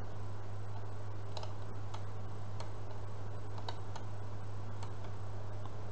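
Steady low hum of room tone with a few faint, scattered clicks.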